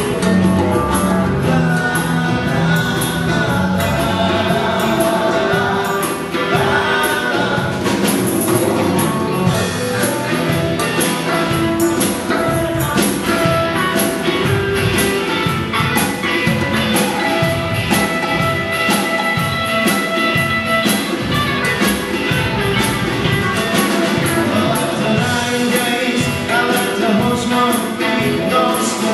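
Live band playing a song, with electric guitar, a steady drum beat and a singer.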